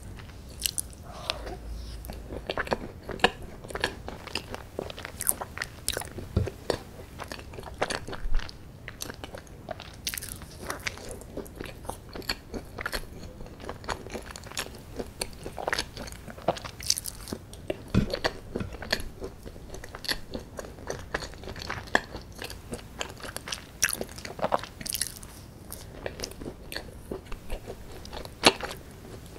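A person chewing and biting chocolate brownie and chocolate ice cream, with many short, irregular mouth clicks and smacks.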